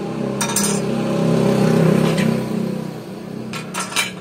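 An engine hum swells to its loudest about midway and then fades, like a passing vehicle. Sharp metal clicks come early, and a cluster of clacks near the end as a steel C-clamp is set on the table-saw top.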